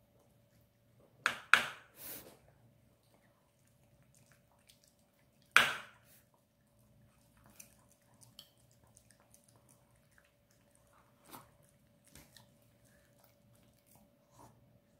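Maltese dog eating from a metal spoon: chewing and smacking, with a few sharp clicks, two close together about a second and a half in and a loud one at about five and a half seconds, then softer ticks.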